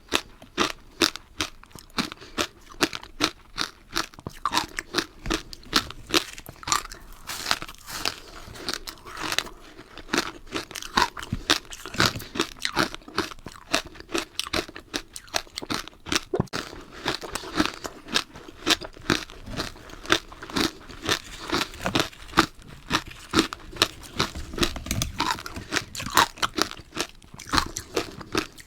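A person biting and chewing powdery matcha ice, with sharp crunches coming several times a second without a break.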